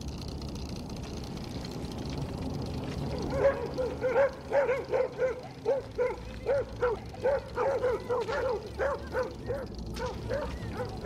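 A dog barking over and over, short sharp barks about three a second, starting about three seconds in and thinning out near the end.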